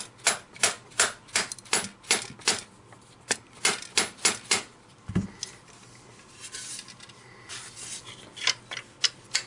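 A rubber mallet tapping a Magpul polymer lower handguard onto an AK-47 to seat it: quick, even taps about three a second, some thirteen in all over the first four and a half seconds. After a dull thump, the parts scrape softly as they are handled, with a few more light clicks near the end.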